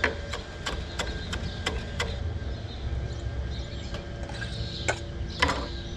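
Kitchen knife mincing chives on a cutting board: crisp chops about three a second for the first two seconds, then a few scattered chops.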